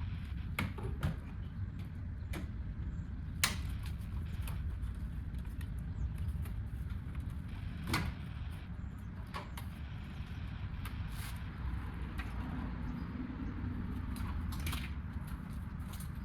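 Scattered sharp clicks and knocks of work on a car, the clearest about three and a half and eight seconds in, over a steady low rumble.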